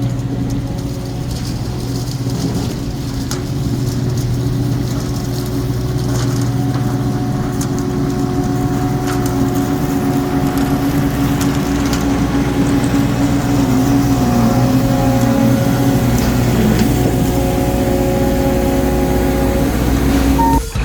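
Skid steer engine running steadily at working revs, with a steady tone that wavers in pitch about two-thirds of the way through, typical of the machine driving a sweeper attachment.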